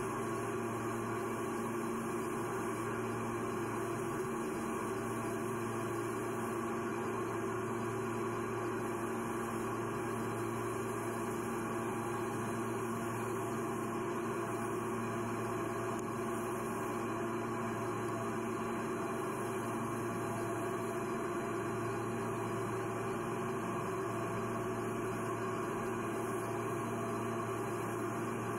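A steady, unchanging hum with a faint hiss over it.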